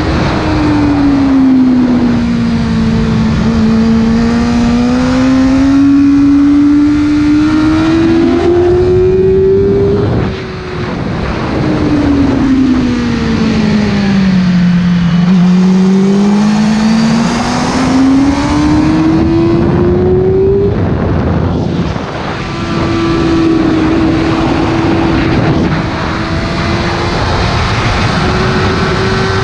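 Sport motorcycle engine at high revs, heard from on board with wind rush over it. The engine note climbs over the first ten seconds, dips, sinks to its lowest about fifteen seconds in, climbs again, breaks briefly about twenty-one seconds in, and then holds steadier, rising a little near the end.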